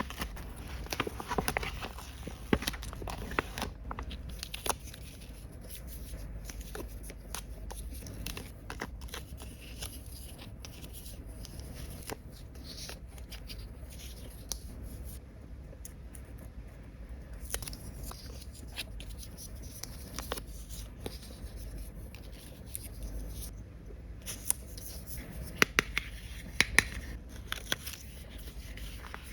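Hands working with toy pieces and packaging: scattered small plastic clicks and taps with some rustling and tearing, and a quick run of sharper clicks near the end.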